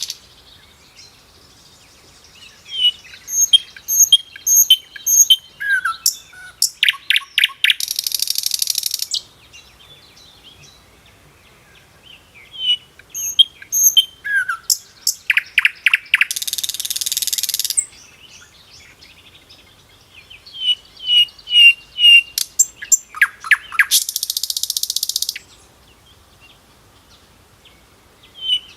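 Songbird calls: sharp high chirps, a short falling whistle, and a buzzy trill about a second long. The same phrase comes round three times, about every eight or nine seconds, as in a looped recording.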